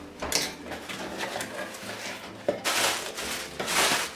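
Rustling and light clicks of packaging being handled, with two longer rustling bursts near the end.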